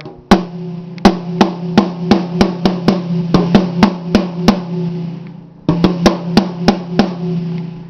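8-inch tom of a PDP X7 maple drum kit, with an Evans EC2 SST clear head and a Moongel damper, struck with drumsticks: one hit, then a run of strokes that gets faster, a short pause and another quick run. Each stroke rings at the same steady pitch.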